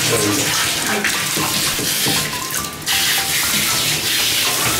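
Water from a handheld shower spraying and splashing over a dog in a bathtub, with light background music playing over it.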